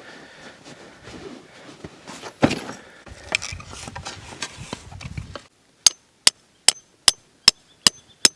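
Rustling and handling sounds with a single sharp knock, then, near the end, a steady run of seven hard hammer blows, about two and a half a second, each ringing briefly.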